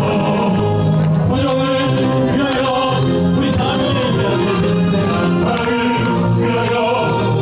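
A choir singing, with long held notes in several parts.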